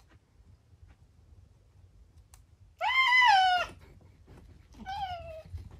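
Domestic cat meowing twice: a long, loud meow that rises and falls about three seconds in, then a shorter, quieter meow that falls in pitch near the end.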